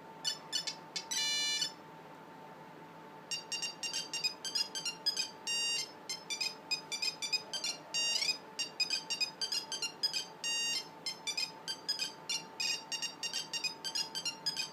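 A Nokia 5510 mobile phone playing a monophonic ringtone through its small speaker: a sequence of short, buzzy electronic notes. A few notes sound at the start, then after a brief pause a fast melody of many quick notes follows.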